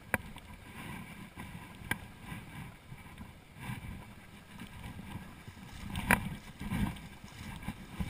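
Mountain torrent rushing around the wading angler, a steady low rumble of moving water. Three sharp clicks stand out: one at the start, one about two seconds in and a louder one about six seconds in.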